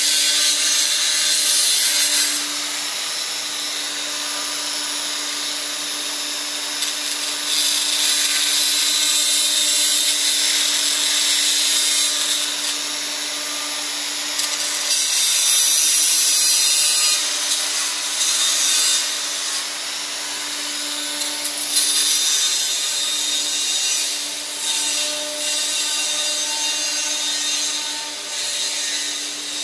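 Angle grinder cutting and grinding steel: a steady motor whine under a loud rasping hiss that swells and eases as the disc is pressed into the metal.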